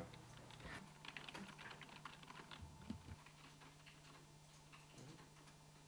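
Faint typing on a computer keyboard: quick, irregular key clicks that thin out after about three seconds, over a steady low hum.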